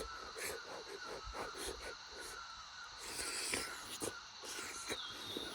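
Faint outdoor ambience with bird calls and scattered small clicks.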